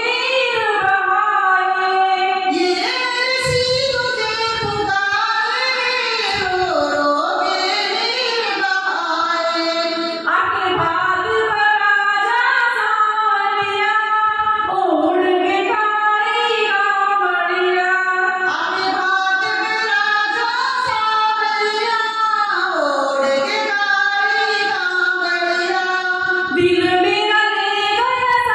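A woman singing a Hindi devotional bhajan to Krishna into a handheld microphone, her voice gliding between long held notes, with a few short low thumps.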